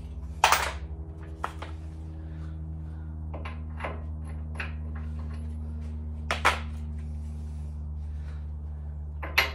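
An impact wrench hammering steadily to loosen a front-suspension nut on a C10 pickup, a low, rapid rattling buzz, with a few sharp clicks of metal on metal.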